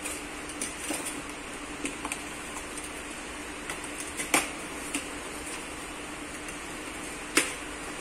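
Steady room hum with a faint low drone, and scattered light clicks and taps from cardboard and foam packaging being handled; the two sharpest come about four seconds in and near the end.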